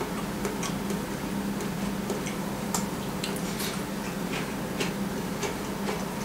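Electric sandwich toaster heating a cheese toast: light, irregularly spaced ticks and crackles over a steady low hum.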